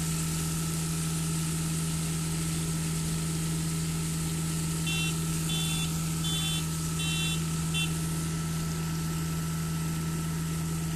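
Diesel engine of a truck-mounted concrete boom pump running steadily with an even low hum. About halfway through, five short high-pitched beeps sound at a steady pace.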